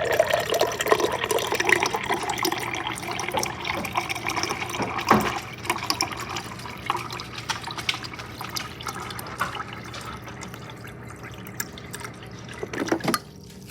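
Water running into a glass as it is filled. The sound slowly grows quieter, with a brief knock about five seconds in.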